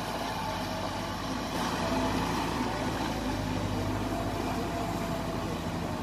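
Diesel engine of a rice combine harvester running steadily, growing a little louder about two seconds in.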